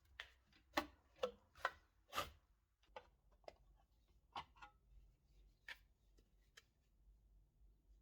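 A string of light, irregular clicks and knocks from small hard objects being handled, loudest and closest together in the first couple of seconds, then thinning out to a few sparse ticks.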